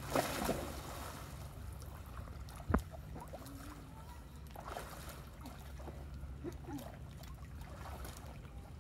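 Splash of a person falling off an inflatable paddleboard into lake water at the start, followed by faint water sloshing and lapping as the girls swim beside the board. A single sharp knock comes nearly three seconds in.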